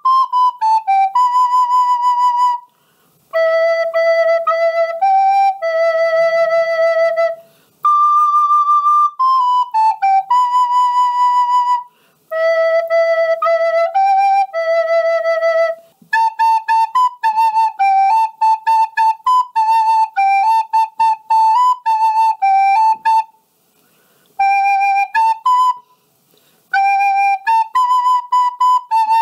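Recorder playing a simple melody in short phrases, with brief pauses for breath between them. Steady single notes alternate with a quicker run of repeated and stepping notes in the second half.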